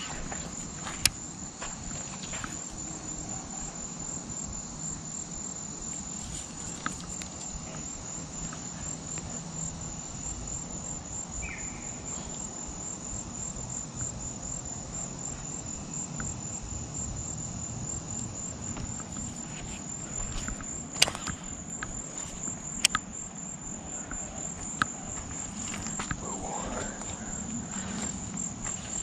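Chorus of insects: a steady, high-pitched, rapidly pulsing trill. A few sharp clicks of fishing tackle being handled sound about a second in and again around two-thirds of the way through.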